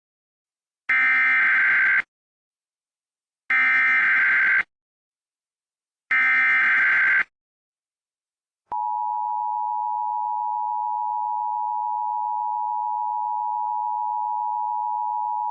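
Emergency Alert System header: three short data bursts of screeching digital tones, then about nine seconds in the steady two-tone EAS attention signal begins, announcing a flood warning.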